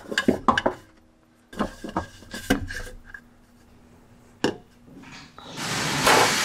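Hands working the spin-on oil filters off a truck engine: scrapes, clicks and knocks of the filter canisters, with one sharp knock about four seconds in. Near the end a steady rushing hiss starts.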